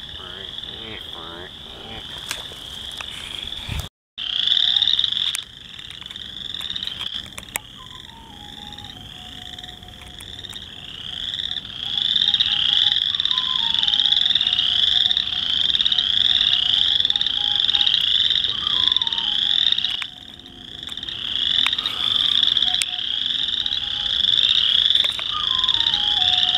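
A dense chorus of western chorus frogs calling from a vernal pool: many overlapping, rapidly repeated rising trills. The chorus cuts out briefly about four seconds in and then comes back louder. A fainter falling whistle recurs about every five seconds beneath it.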